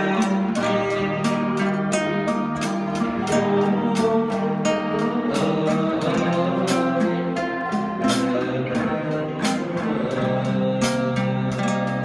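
Live Southeast Asian classical ensemble music: a boat-shaped xylophone and struck-string instruments playing quick running notes over held low tones.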